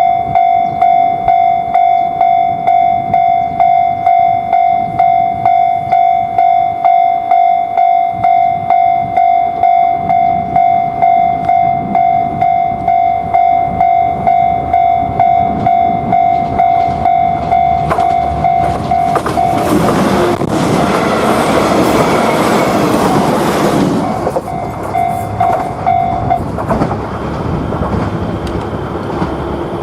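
Japanese level-crossing warning bell ringing its "kan-kan" about twice a second. About eighteen seconds in, a train passes over the crossing with a loud rush of wheel and rail noise lasting some six seconds. The bell stops a couple of seconds after the train has mostly gone, and the train's running noise fades on.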